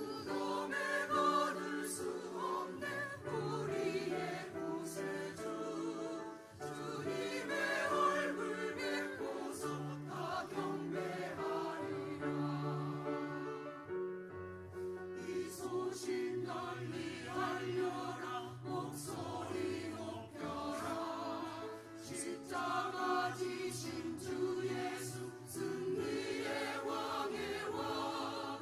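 Church choir singing a sacred Easter anthem, with many voices in sustained, changing chords.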